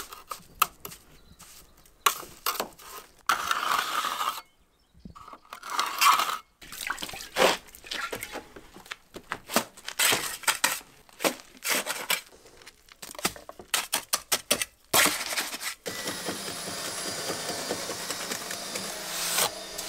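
Hand work with wet cement mortar: scooping it from a plastic bucket and spreading and smoothing it with a wooden float, giving irregular scrapes, clicks and knocks. Near the end a steady noise sets in underneath.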